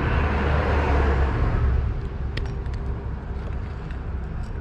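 Steady rushing noise of river water with a low rumble, swelling louder in the first two seconds, with a few light clicks later on.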